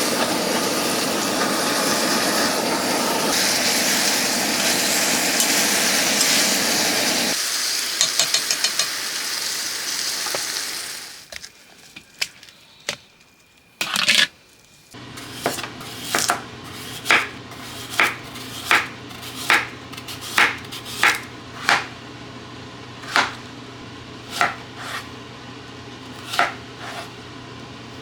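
A steady, loud sizzling hiss of food cooking for roughly the first ten seconds. After a short lull, a kitchen knife starts chopping on a cutting board, at about one and a half even chops a second.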